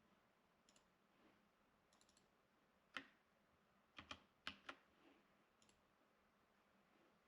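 Faint, scattered clicks of a computer keyboard and mouse: a few light keystrokes, one sharper click about three seconds in, then a quick run of four clicks a second later.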